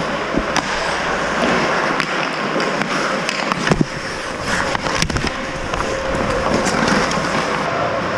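Ice hockey skates scraping and carving on the ice in a steady hiss, broken by sharp clacks of sticks and puck, the sharpest a little under four and five seconds in.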